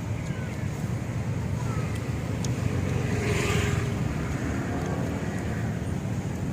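Street traffic running steadily, with one vehicle passing louder about three to four seconds in.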